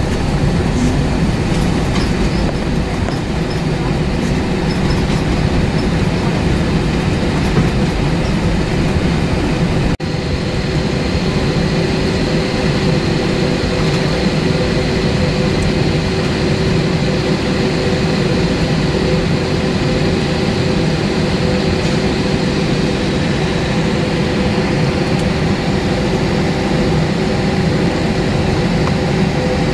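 Cabin noise of an Airbus A320-232's IAE V2500 turbofan engines at taxi power as the airliner taxis onto the runway: a steady hum with a few held tones over a constant rushing noise.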